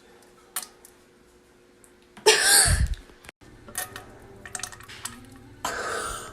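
Two loud burps from a young woman: a deep, rough one about two seconds in lasting under a second, and a shorter one near the end.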